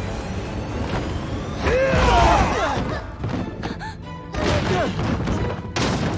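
Dramatic film score with a heavy boom about two seconds in, layered with swirling, gliding sound effects; shorter gliding effects follow a couple of seconds later.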